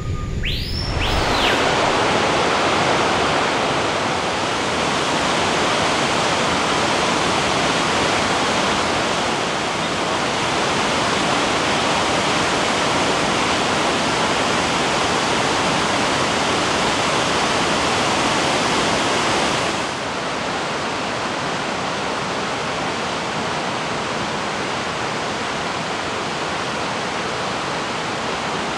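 Whitewater of river rapids rushing over rocks: a steady, dense rush of water, dropping a little in level about twenty seconds in.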